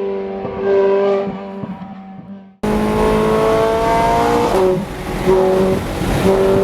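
Ferrari F430 Scuderia's 4.3-litre V8 running, its pitch falling, with a short rise in revs about a second in. About two and a half seconds in, the sound cuts suddenly to a louder take of the engine. Its pitch sinks again and then holds at one note in short stretches, broken by brief dips.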